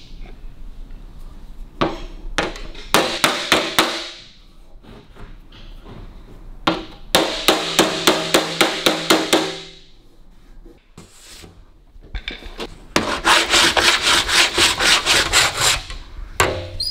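Rapid hand-tool strokes on a thin aluminium car bonnet panel during metal finishing, the panel ringing with each stroke. They come in three runs, the last one the longest and fastest, at about four strokes a second.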